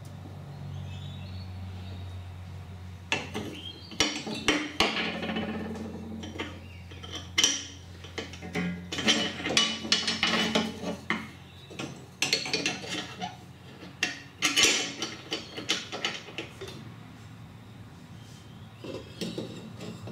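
Metal parts of a ride-on mower's cutter deck clinking and rattling as the belt pulley wheel is handled and fitted back on: a string of irregular clanks and knocks.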